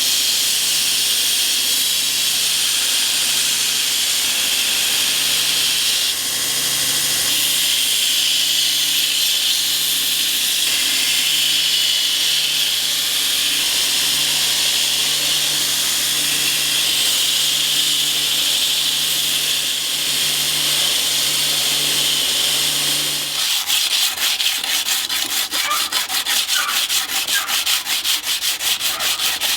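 A belt grinder grinding a steel knife blade to profile and bevel: a steady abrasive hiss over the motor's hum. About 23 seconds in the motor stops and gives way to quick, even rubbing strokes of hand sanding on the blade.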